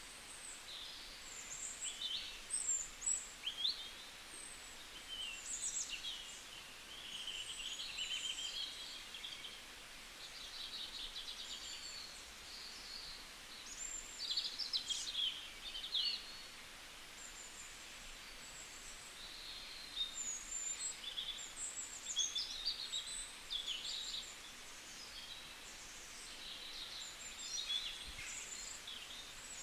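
Small birds chirping and trilling: many short, high calls that come in clusters, some quick and warbling, over a faint steady hiss.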